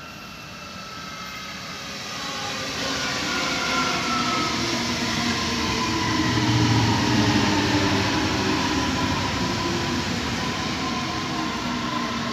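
S-Bahn Stuttgart electric multiple unit approaching and running past close by: whining electric tones over the rumble of wheels on the rails. It grows louder through the first half and is loudest about seven seconds in.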